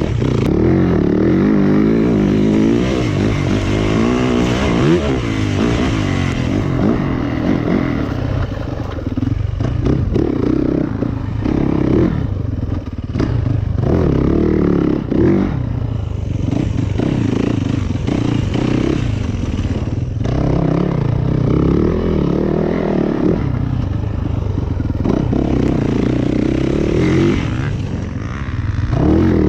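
Yamaha YZ450FX dirt bike's single-cylinder four-stroke engine being ridden hard, its revs rising and falling over and over as it goes through the turns.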